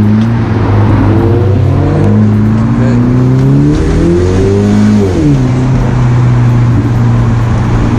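BMW 1 Series E88 convertible's engine and exhaust, heard from the open cabin with the roof down, accelerating. The engine note climbs for about four seconds, drops sharply about five seconds in, as with a gear change or lifting off, then runs steadily.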